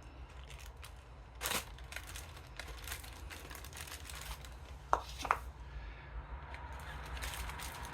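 Hand-work noises while greasing an outboard's propeller shaft: a short rustle about one and a half seconds in and two sharp clicks about five seconds in, over a low steady hum.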